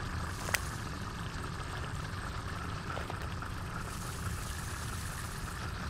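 Steady low ambient drone with a soft hiss above it, the background sound design of a molecular animation; one short click about half a second in.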